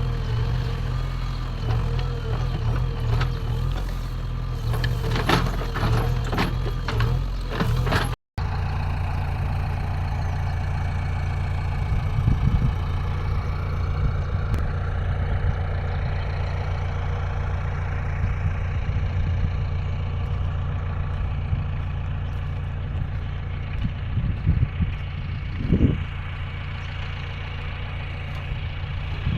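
JCB backhoe loader's diesel engine running steadily, with a few knocks and clanks from the machine's arm and bucket. The sound breaks off sharply about eight seconds in and the engine resumes at the same steady pace.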